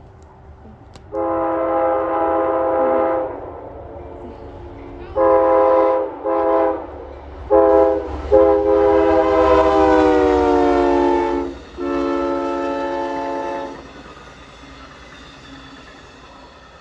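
Amtrak locomotive's multi-chime air horn sounding six blasts in a playful pattern: one long, three short, then two long, the pitch sliding lower during the fifth blast as the locomotive passes. Train rumble runs underneath and continues after the horn stops.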